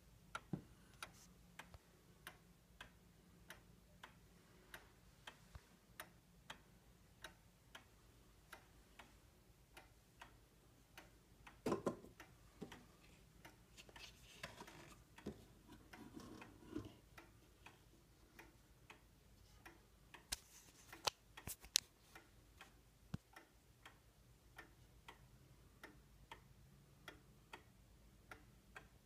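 Seth Thomas long-drop regulator pendulum clock ticking faintly and evenly, its time-only movement beating a steady tick-tock. A few louder knocks and a brief rustle come midway.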